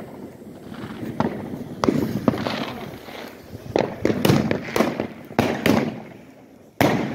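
New Year's Eve fireworks going off: an irregular series of sharp bangs, about a dozen, each trailing off in a rumbling echo. The loudest bangs start near the end.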